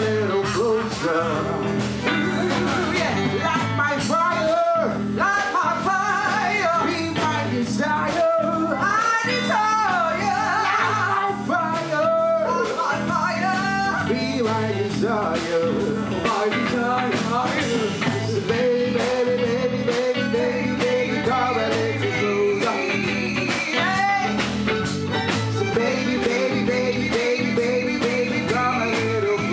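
Live band playing: men singing into microphones over electric guitar and bass guitar, with a busy percussive beat.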